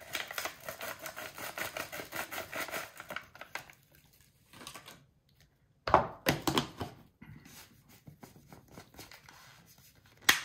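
Foil sample packet crinkling as protein powder is shaken out of it into a plastic shaker cup, a fast crackling for the first few seconds. Then plastic knocks and clicks as the shaker-cup lids are put on and screwed shut, with a sharp click near the end.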